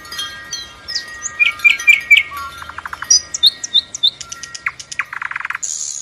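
Several songbirds chirping together in a morning chorus: many short high chirps and quick sliding calls, with a fast rattling trill about five seconds in.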